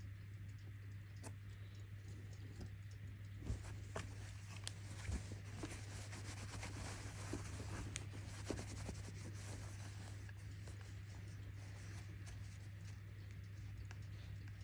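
Vintage Cyma mechanical alarm clock being handled: irregular small clicks and rubbing, busiest in the middle, over a steady low hum.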